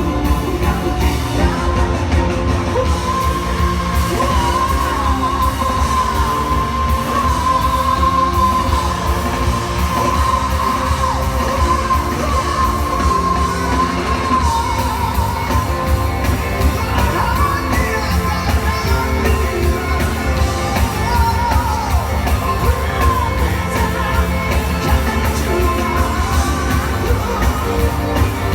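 Live pop-rock band performance with a singer belting, holding one long high note with vibrato for about fifteen seconds before singing on over the band.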